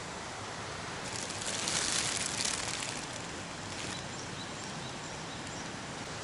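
Steady rush of flowing river water, with a louder hissing swell about a second in that lasts a couple of seconds.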